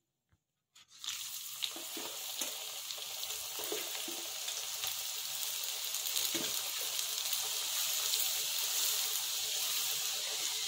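Batter-coated potato fingers deep-frying in hot oil in a kadhai, refried to crisp them: a steady, bubbling sizzle that starts about a second in.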